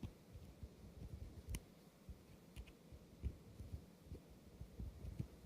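Faint handling noise with a few small clicks: the tweezers of a Victorinox SwissCard Classic being slid into their slot in the plastic card.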